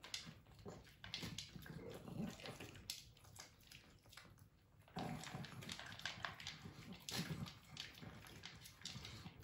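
Two dogs, a pug and a small long-haired Pekingese-type dog, eating dry kibble from plastic bowls: faint, irregular crunching, chewing and muzzle-in-bowl noises. The Pekingese bites and crunches its kibble while the pug gulps it without chewing. The eating goes quieter about three and a half seconds in and picks up again at about five seconds.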